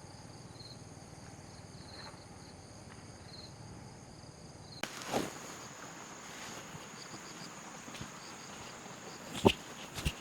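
Insects, crickets among them, trilling steadily in a forest, with short repeated chirps. A single sharp snap sounds near the end.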